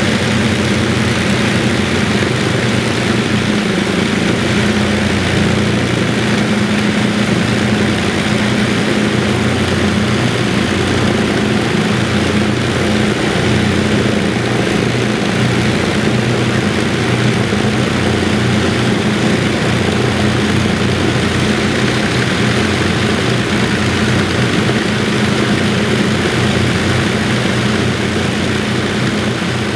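Avro Lancaster's Rolls-Royce Merlin V12 piston engines running on the ground after start-up, propellers turning, a loud, steady deep drone.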